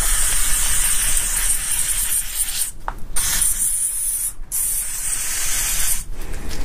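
Aerosol can of maintenance spray hissing in three bursts, the first the longest, being sprayed to clean gear-oil sludge and metal debris from a gearbox magnet.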